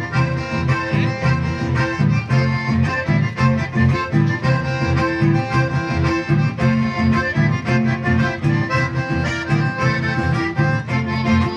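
Live band music led by two accordions playing the melody, with an acoustic guitar strumming along to a steady, even beat.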